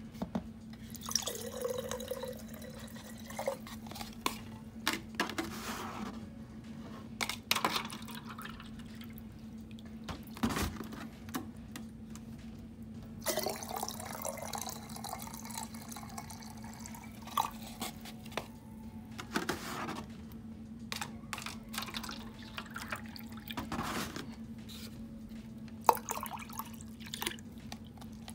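Distilled water poured in several goes from a foam cup into the open glass base of a snow globe, trickling and splashing, with small clicks and knocks of cup against glass and one sharper knock near the end. A steady low hum runs underneath.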